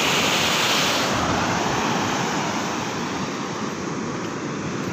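Surf breaking and washing up the beach, a steady rush of noise mixed with wind. It is loudest for about the first second, then eases.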